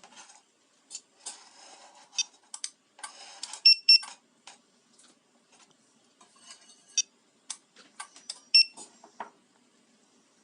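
Car alarm key fob being handled and its buttons pressed: sharp plastic clicks and several short, high electronic beeps from its buzzer, some in quick pairs.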